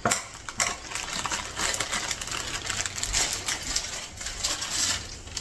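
Rapid, irregular clicking and light clattering, like small hard objects being handled.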